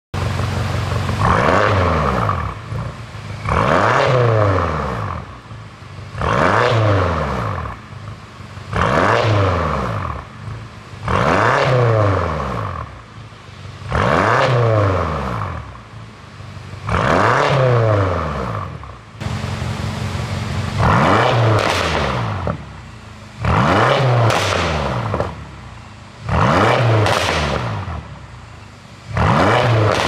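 BMW X6 M (F86) 4.4-litre twin-turbo V8 being free-revved about a dozen times, each blip climbing sharply and falling back, roughly every two and a half seconds. The engine carries a pops-and-crackles tune, so each rev dies away with crackling from the exhaust.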